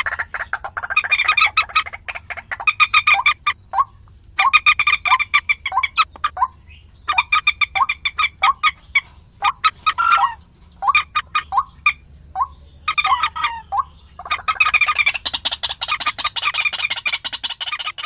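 A recorded moorhen (mandar) lure call: rapid clucking calls come in phrases of one to two seconds, with short pauses between them.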